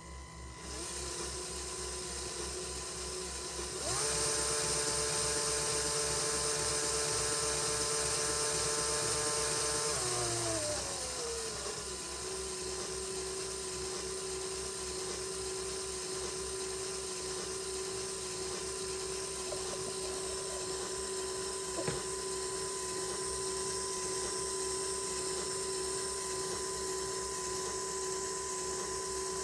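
Small Lego electric motor whining as it drives a Lego Technic DOHC engine model slowly through its gears and timing chain. About four seconds in the whine gets louder and higher. Around ten seconds in it glides down in pitch and settles to a steady lower whine, with a single click about 22 seconds in.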